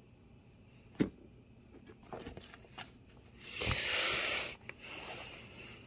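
A single short knock about a second in, a few faint taps, then a rustle of jacket fabric lasting about a second, followed by a softer rustle.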